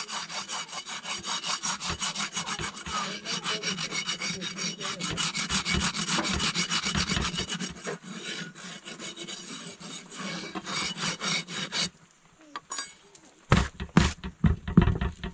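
Fast, rhythmic scraping, many strokes a second, that stops abruptly about twelve seconds in. A few low thumps follow near the end.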